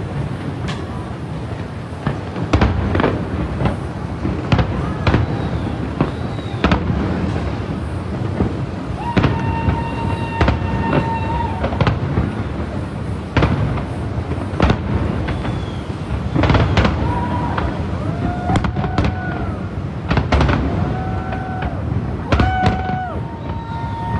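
Aerial fireworks shells bursting over water in a dense, continuous barrage of bangs and booms. Several long, steady pitched tones sound over the bangs from time to time.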